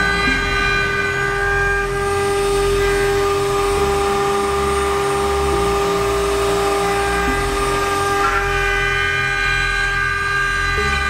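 Multi-head CNC router running: several spindles whine together at steady pitches, over a low rumble that rises and falls every half second or so.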